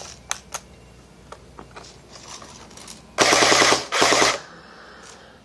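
Airsoft FAMAS rifle firing two short full-auto bursts, a rapid even clatter of shots, after a few single clicks at the start.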